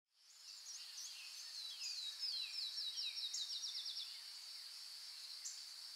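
Faint forest ambience fading in: a steady high insect drone with bird chirps, including a quick run of falling notes that speeds up between about two and four seconds in.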